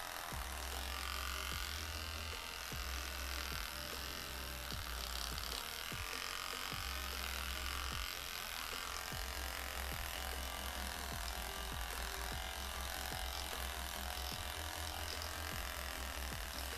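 Philips Beard Trimmer Series 1000 (BT1000) cordless electric trimmer running continuously, cutting short beard stubble on the chin and jaw.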